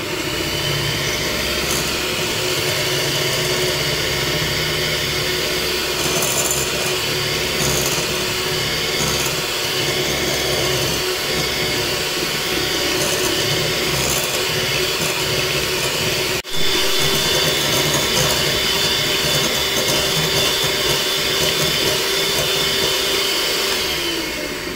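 Electric hand mixer running steadily, its beaters whisking oil and ground sugar in a glass bowl: a motor hum with a high, even whine. It cuts out for an instant about two-thirds through, and near the end the motor winds down as it is switched off.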